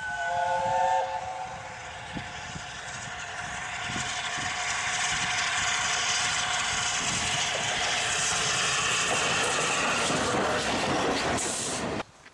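A1 Pacific steam locomotive No 60163 Tornado sounds a short chime whistle of several notes together for about a second at the start. Then the engine and its coaches run toward and past, the noise growing louder and staying loud until it cuts off abruptly near the end.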